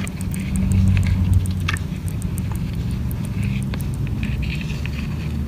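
Hermit crab making a run of small, quick ticking clicks, 'tik tik tik', over a steady low rumble.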